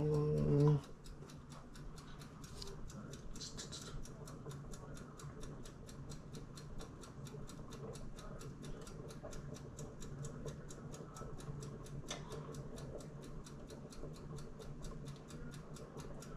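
Steady, rapid ticking, about four ticks a second, over a low hum, with a brief hummed voice sound at the very start.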